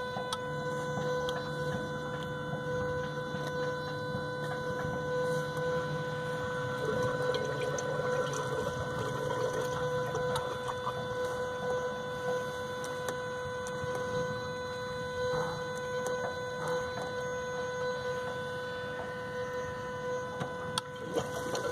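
Yamaha F250 outboard's electric fuel pump, cycled from a diagnostic computer with the engine stopped, pushing fuel through the vapor separator tank and out a sampling hose to flush water from the fuel system: a steady whine, with a lower hum that stops about ten seconds in.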